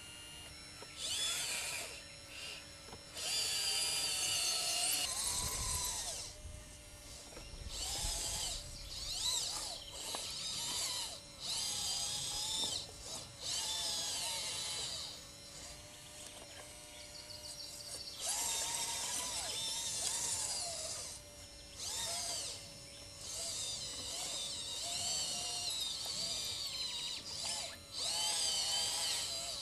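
Radio-controlled scale model Liebherr LR632 crawler loader's electric motors and hydraulic pump whining in repeated bursts of a second or a few seconds, the pitch wavering as the machine drives and works its bucket. A faint steady tone carries on between the bursts.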